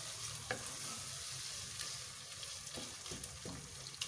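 Minced beef (keema) sizzling steadily in oil while being stirred with a wooden spatula, with a few short taps of the spatula against the pot. The meat is being fried down (bhuna) with freshly added yogurt.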